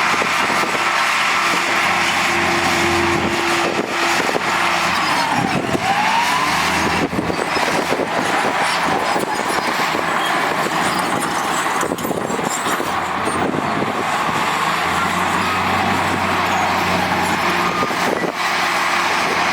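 Heavy construction machinery's diesel engine running steadily under work, with a brief tone that falls and rises again about six seconds in.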